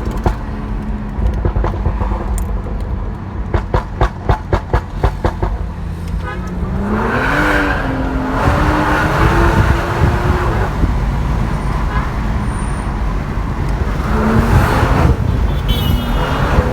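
BMW 340i's turbocharged straight-six, on a Stage 2 tune, crackling and popping through the exhaust in a rapid string of sharp bangs over the first five seconds. Then the engine note climbs as the car accelerates, with another short rise near the end.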